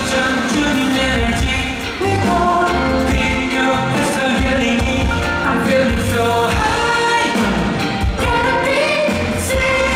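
A male singer performing a pop song live over full band backing music, amplified through a concert sound system.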